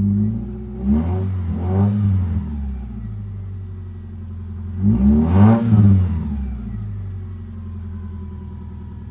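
Ford F-250 pickup engine idling, blipped twice: the revs rise and fall about a second in and again about five seconds in, then settle back to a steady idle.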